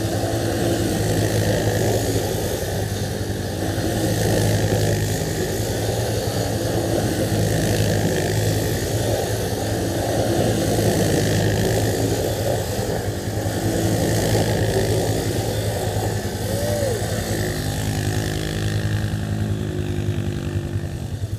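ATV engine idling steadily close by, with the engine of a small quad doing donuts farther off rising and falling in loudness every few seconds.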